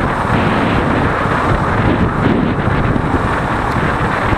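Steady rush of wind buffeting the microphone of a moving motorcycle, mixed with the bike's running and road noise.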